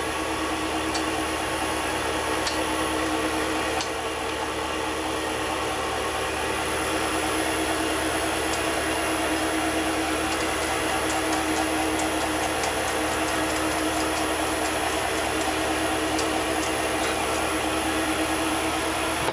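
Small Chinese mini lathe running with its chuck spinning at a constant speed, giving a steady motor hum with a held whine and a few faint ticks.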